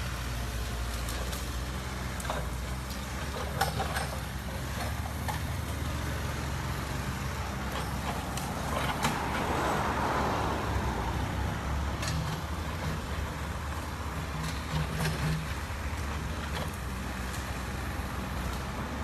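Small crawler excavator's diesel engine running steadily as it works, with scattered sharp cracks and knocks and a swell of rustling noise about nine to eleven seconds in as it pushes through tree branches.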